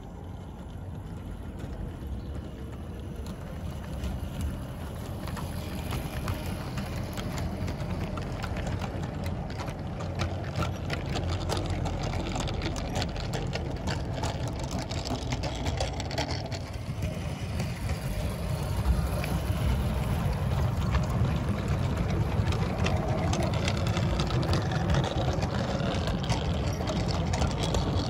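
A battery-powered 16mm-scale model train rolling along garden-railway track: a low rumble of wheels with many small clicks over the rail joints. It grows louder as the carriages pass close by.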